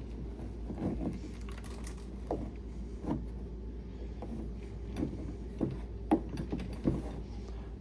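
Scattered light clicks and knocks of hard plastic as the push handle of a Step2 Whisper Ride Cruiser ride-on toy is wiggled against its molded plastic body, trying to line up the bolt hole.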